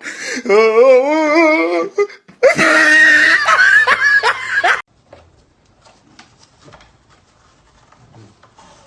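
A person laughing loudly in wavering, high-pitched peals for about five seconds, then stopping; only faint clicks follow.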